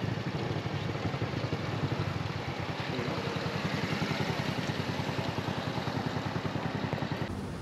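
Small Honda single-cylinder four-stroke motorcycle engine running steadily with a fast, even beat. It stops abruptly near the end.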